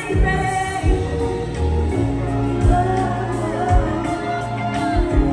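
Live concert music over a loud PA: a woman singing over a band, with heavy low drum hits about once a second.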